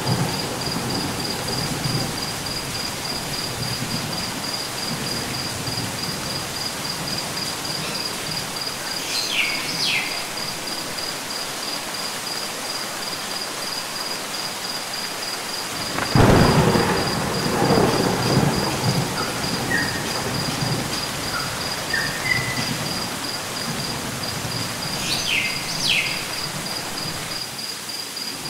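Added rain-and-thunder sound effect: steady light rain, with thunder rumbling at the start and again about 16 seconds in. A high, evenly pulsing chirp runs throughout, and short high chirps come twice.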